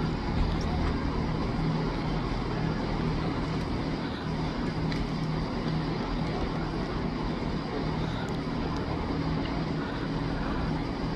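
Railway station platform ambience: a steady low engine hum and rumble from trains, with faint voices in the background.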